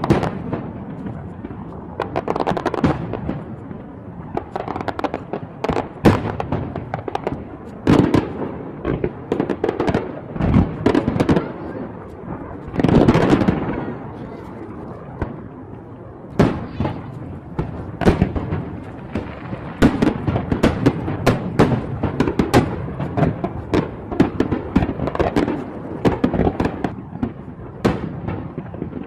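Fireworks display: shells bursting in an irregular run of sharp bangs and crackles over a continuous din, the bangs coming thicker and faster in the second half.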